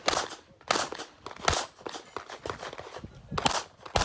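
Handgun shots in an IPSC competition, fired singly and in quick pairs at uneven intervals, each with a short echo.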